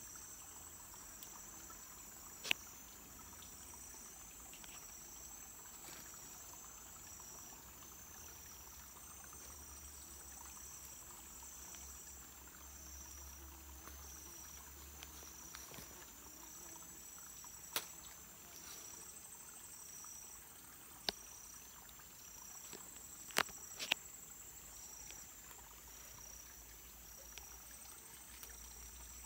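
Forest insects chirping steadily and high-pitched, one pulsing in a regular repeating beat over a continuous trill, with a few sharp clicks, two of them close together a little past the middle.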